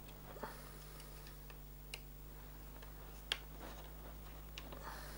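A few faint, sharp clicks from hands handling the plastic chassis, front wing and small screws of an Xray X1 RC Formula One car, the loudest about three seconds in, over a steady low hum.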